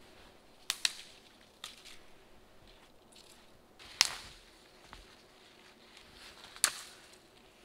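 Spruce branches being cut or snapped off, heard as a handful of sharp, separate cracks a second or more apart, the loudest about four seconds in.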